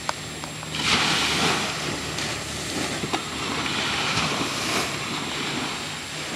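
Small surf washing up the beach, with wind rumbling on the microphone; the wash swells about a second in and again around four seconds.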